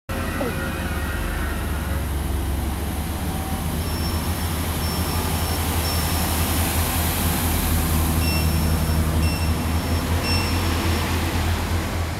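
Pacer diesel railbus running with a steady low engine drone as it pulls away from the platform. A series of short high beeps repeats through the middle of it.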